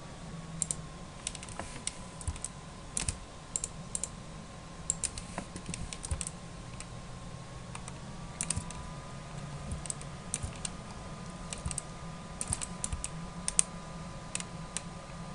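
Irregular clicking of a computer keyboard and mouse, single clicks and short clusters, over a faint steady electrical hum with a thin whine.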